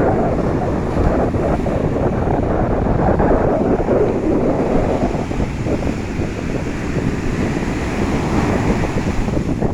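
Sea waves washing in, with wind buffeting the microphone: a continuous rushing noise that swells and eases.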